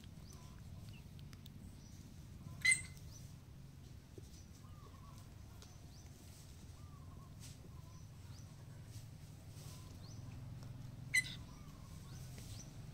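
Two short, sharp high-pitched animal chirps about eight seconds apart, over a low steady hum, with faint small squeaks in between.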